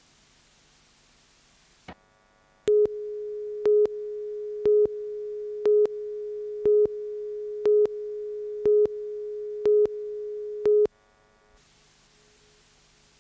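Broadcast videotape countdown leader: a steady line-up tone with a louder beep on every second, nine beeps in all, as the countdown slate ticks down. It starts after a single click and cuts off suddenly about eleven seconds in, leaving tape hiss.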